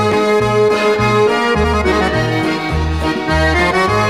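Instrumental background music: held melody notes over a regular bass line that changes about twice a second.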